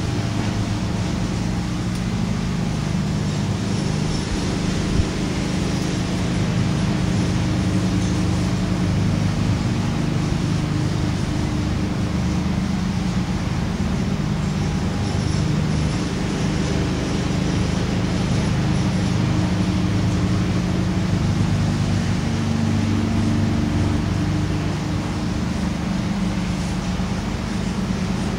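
A steady low mechanical hum runs on without a break, with no clear source in view.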